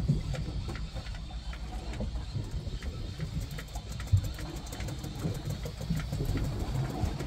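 Fishing boat's engine running steadily at low revs, a low rumble with water and wind noise over it, and a single sharp knock about four seconds in.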